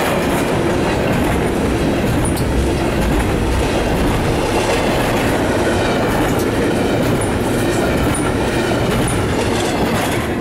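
Double-stack intermodal well cars of a freight train rolling past close by: a steady rumble of steel wheels on rail with clickety-clack over the rail joints and a few short, high wheel squeaks. The noise begins to ease near the end as the last car clears.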